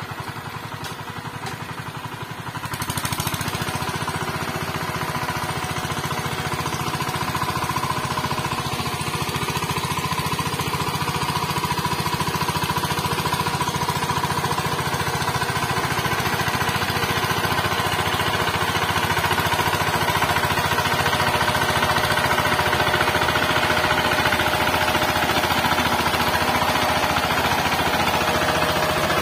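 Walk-behind power tiller's single-cylinder diesel engine running steadily with a fast, even knocking beat as its rotary tines work the soil; it gets louder about three seconds in.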